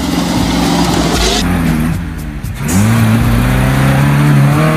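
Off-road truck engines revving under load as they climb. About two seconds in, the sound breaks off and switches to a second truck's engine, which revs hard with its pitch rising slowly as it pushes up through sand.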